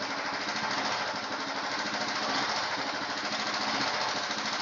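Royal Enfield single-cylinder four-stroke motorcycle engine running steadily, with a fast, even firing rhythm. It is running with the choke open, so the mixture is too rich.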